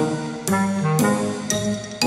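Background music: sustained notes and chords with a fresh note struck about every half second.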